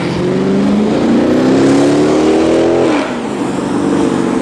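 A passing car's engine accelerating, its pitch rising for about three seconds, then dropping sharply as it shifts up a gear and pulling on more steadily.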